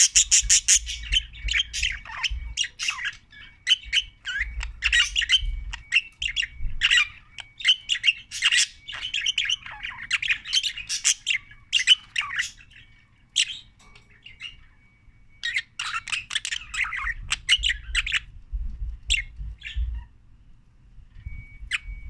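Budgerigar chattering: quick runs of short chirps and squawks, pausing briefly about two-thirds of the way through and thinning out over the last few seconds.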